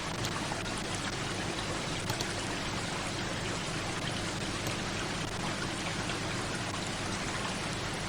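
Steady hiss of falling water with faint scattered drops and ticks, an ambience sound effect laid under the animation.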